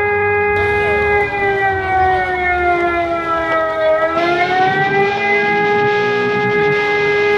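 Siren sounding a long, steady held tone that sinks slightly in pitch about four seconds in and then climbs back.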